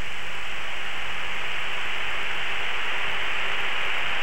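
Steady, even hiss on a jet's cockpit audio recording, the open intercom and radio channel carrying no voice.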